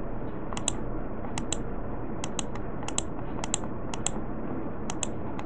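Light clicking at a computer while display settings are changed, short sharp clicks mostly in close pairs, coming irregularly every half second to a second over a steady background hiss.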